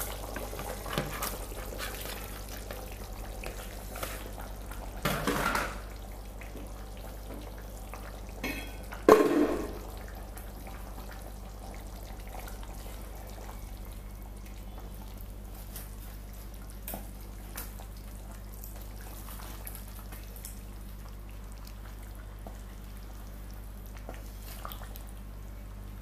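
A pot of sauce simmering with faint bubbling and small crackles as fish is added and stirred in, over a steady low hum. Two louder sudden sounds stand out about five and nine seconds in, the second the loudest.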